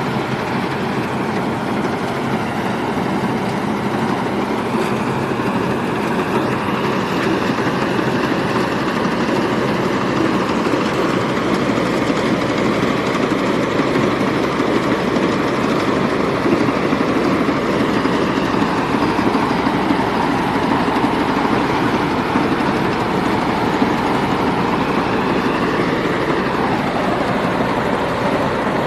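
Combine harvester running steadily while harvesting rice, a dense engine and machinery noise whose pitch drifts slowly up and down.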